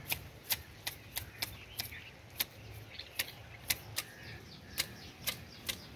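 Hand hedge shears snipping the leafy shoots of a ficus topiary: short, sharp blade clicks at an irregular pace of about two to three a second.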